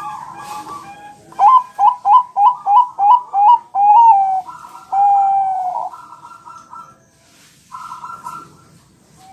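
Zebra dove (perkutut, Bangkok strain) singing. It starts with soft cooing, then about a second and a half in gives a loud run of seven short rising coos, about three a second, ending in two longer drawn-out coos. Softer cooing follows near the end.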